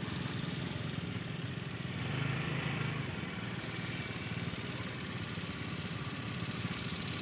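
Small motor vehicle's engine running steadily as it travels, with a low, even hum under a rushing noise.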